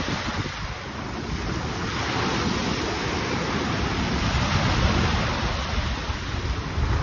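Small sea waves breaking and washing up over the sand at the shoreline, with wind buffeting the microphone as a low rumble. The surf swells a little about halfway through.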